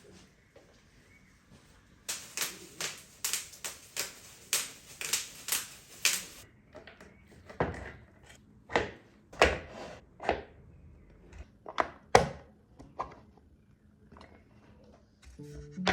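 Parts of an office chair being handled and fitted together during assembly: a quick run of sharp clicks, about three a second, for a few seconds, then scattered single knocks and taps.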